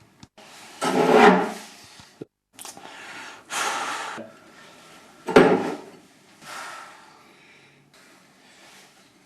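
Someone rummaging in a kitchen: drawers and cupboards opened and shut, with dishes clattering, in several separate bursts. The loudest come about a second in and again about five and a half seconds in.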